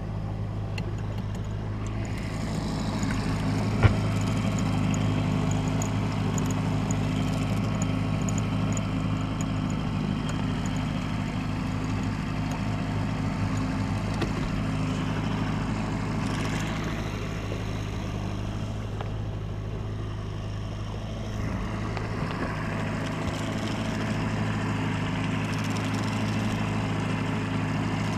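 Boat motor running steadily at trolling speed, an even low drone. A single sharp knock about four seconds in.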